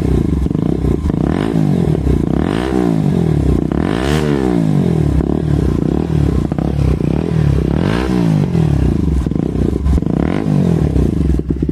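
Bajaj Pulsar NS motorcycle's single-cylinder engine, fully warmed up, being revved through an aftermarket Akrapovic full-system exhaust: a loud series of about half a dozen throttle blips, each rising and falling in pitch, with idling in between.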